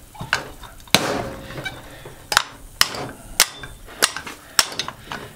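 Hammer blows knocking at an old air conditioner fan motor to drive out a shaft stuck halfway through its end bell. A steady series of sharp metallic knocks, a little under two a second; the one about a second in is the loudest and rings briefly.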